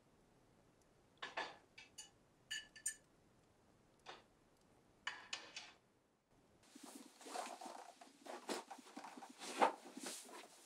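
Faint, scattered clinks of cutlery and glassware at a dinner table. About six seconds in they give way to a continuous run of rustling and small knocks as a bag is handled and packed.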